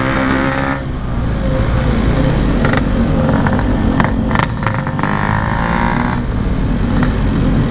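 Two-stroke Yamaha RX-King motorcycle engine running steadily while riding, through its stock-style aftermarket muffler, under a haze of road and traffic noise.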